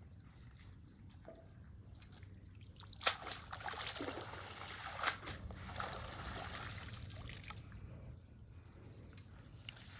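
A cast net being hauled up out of a muddy canal: a sudden splash about three seconds in, then water splashing and trickling off the mesh for several seconds before it eases.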